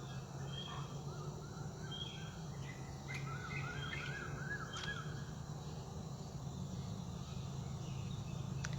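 Birds chirping, with a quick run of short repeated chirps around the middle, over a steady low hum.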